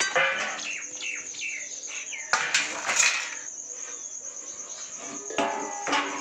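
Crickets chirping in a steady, high, pulsing trill, with metal pots and utensils clattering as they are picked up and moved, the loudest knocks about two and a half and three seconds in and again near the end.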